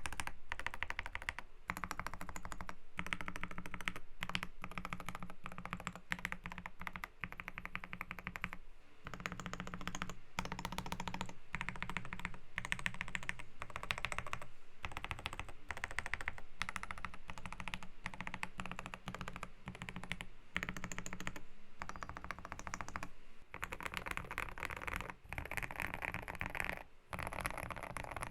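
Typing on a GMK67 mechanical keyboard with lubed JWK black linear switches, a polycarbonate plate and a tape mod: fast, continuous keystrokes with a few short pauses.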